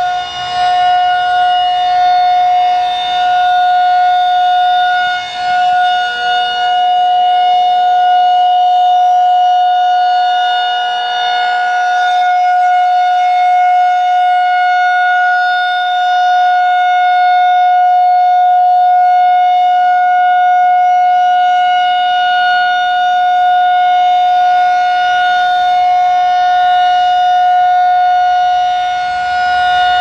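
Federal Signal 2001-SRN electromechanical warning siren sounding its steady alert tone at a fixed pitch. The loudness swells and fades slowly as the horn rotates, with a dip about five seconds in.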